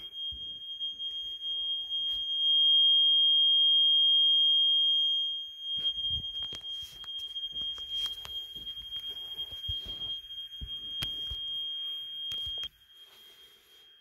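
Fire alarm panel trouble sounder giving one steady high-pitched tone, the sign of a no-AC-power trouble condition. The tone is louder for the first few seconds and cuts off suddenly about a second before the end. Footsteps and handling knocks sound under it in the second half.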